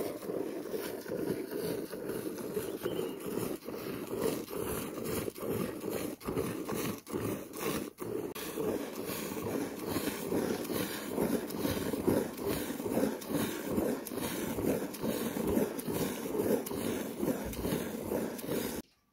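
A cow being milked by hand into a plastic bucket: jets of milk squirt in quick, uneven strokes into a bucketful of froth, making a rhythmic swishing.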